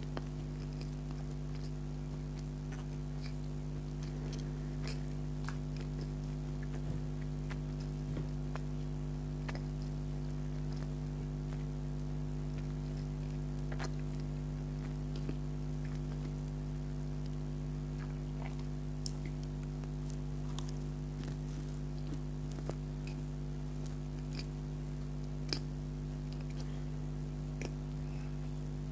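Scattered small wet clicks and smacks of someone chewing donut, over a steady electrical hum that is the loudest thing throughout.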